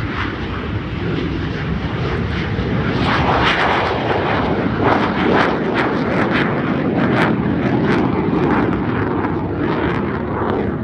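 Jet engine noise from CT-155 Hawk trainer jets, with Rolls-Royce Turbomeca Adour turbofans, flying low past. It is a steady loud rumble that swells about three seconds in and carries a rapid crackle through the middle.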